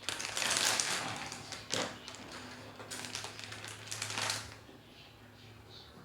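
Small screwdriver and the tablet's plastic parts being handled during disassembly: a stretch of scraping and rustling, a sharp click, then more scraping.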